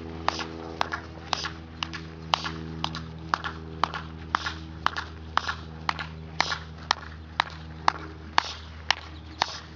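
Sharp taps about twice a second, keeping an even marching time, over a steady low hum.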